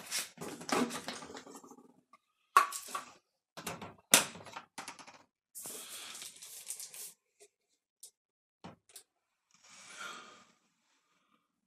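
Handling of a plastic fabric-softener bottle at a washing machine's dispenser drawer: two sharp knocks a few seconds in, then rustling and a few light clicks. Near the end comes about a second of liquid softener pouring into the drawer's plastic auto-dose tank.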